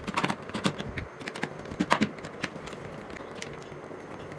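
Small screwdriver driving screws into the plastic handle of an electric mosquito racket, with light clicks and taps of the plastic casing, busiest in the first two seconds.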